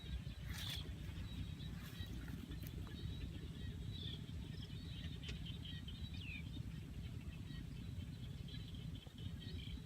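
Faint bird chirps, several short calls, over a steady low rumble, with a few light clicks.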